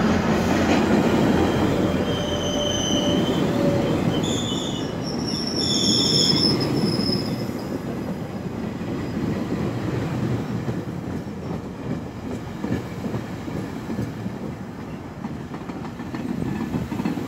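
GO Transit bilevel passenger coaches rolling past on the rails, a dense rumble that slowly fades. Several high-pitched metallic squeals come from the running gear about two to seven seconds in.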